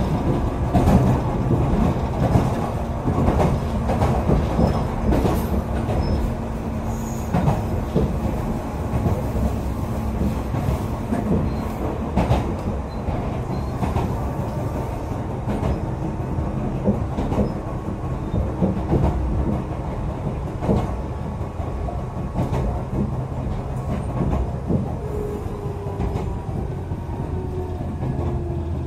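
Echizen Railway electric railcar running, heard from inside the car: steady rumble and motor hum with wheels clicking over rail joints. Near the end the motor's whine falls in pitch as the train slows.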